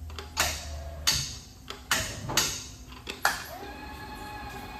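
Schechtl 310/CNC sheet-metal folder: a series of sharp metallic clanks from the machine being worked, then a steady motor hum that starts about three and a half seconds in.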